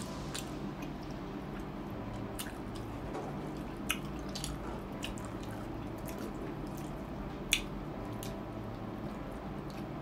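Close-miked eating sounds: wet chewing and mouth smacks, with scattered sharp clicks, and fingers pressing sticky rice against the tabletop. The loudest smacks come about four seconds in and again about three-quarters of the way through.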